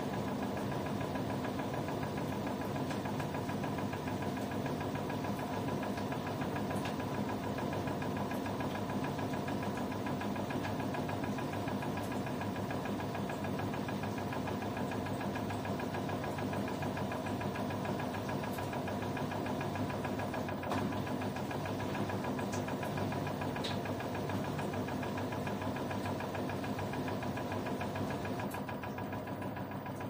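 Two LG direct-drive front-loading washing machines running together, a steady motor hum and whine with an even, fast rhythm from the turning drums.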